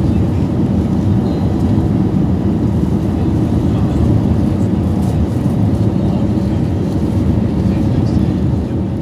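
Steady engine and airflow noise heard inside a jet airliner's cabin after takeoff, fading out near the end.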